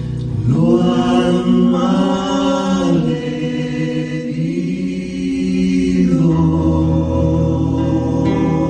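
Two male voices of a folk vocal duo singing together in harmony, holding long notes that change pitch only a few times.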